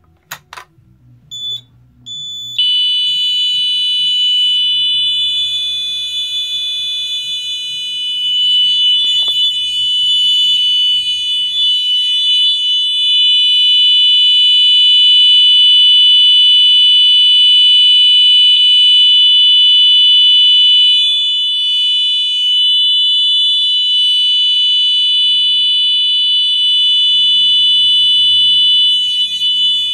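A Simplex pull station clicks as it is pulled, and about two and a half seconds later a Simplex TrueAlert 4906-9138 multi-tone horn strobe, set to its 500 Hz horn tone, starts sounding after two short chirps. It then sounds as one loud, steady, continuous horn tone without breaks.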